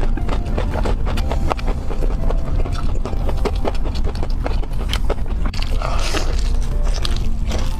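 Close-up crunching bites and chewing of crispy fried chicken: a dense run of crackles, with a louder crunch about six seconds in.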